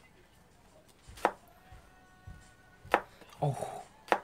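Kitchen knife slicing garlic cloves on a plastic cutting board: three sharp taps of the blade meeting the board, slow and about a second and a half apart.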